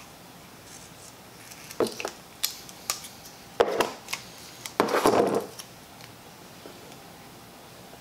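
Red-handled tin snips cutting strips from a roll of double-sided foam mounting tape: a few short blade clicks, then two longer cutting sounds around the middle, the second the loudest.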